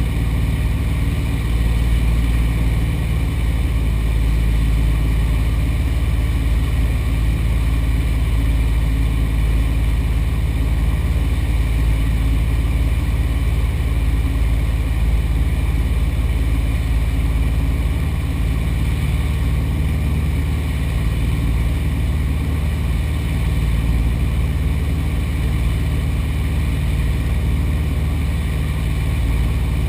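Light aircraft engine running steadily, a constant low drone with no change in pitch.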